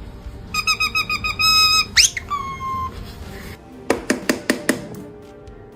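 Parrot whistling: a fast warbling trill, then one sharp upward-sweeping whistle and a short held note that slides down. A quick run of about six sharp taps follows a little past the middle.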